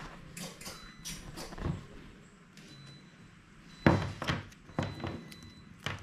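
A few sharp knocks and thuds of handling on a wooden desk as a coiled power cable is picked up, with light clicks early on and the loudest thud about four seconds in.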